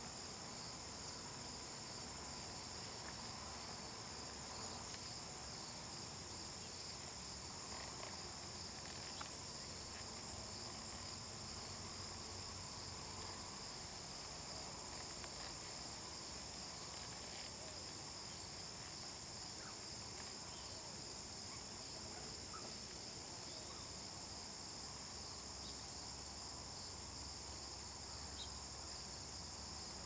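Steady high-pitched chirring of an outdoor insect chorus, unbroken throughout, with a few faint light ticks now and then.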